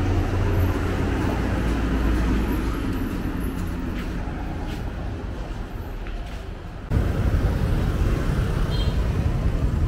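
Steady road-vehicle and traffic noise, heaviest in the low range; it eases gradually, then jumps abruptly louder about seven seconds in.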